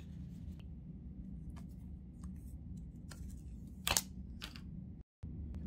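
Quiet handling of a phone's boxed paper manuals and the phone itself: a few faint clicks and paper contacts over a low hum, with one sharper tap about four seconds in.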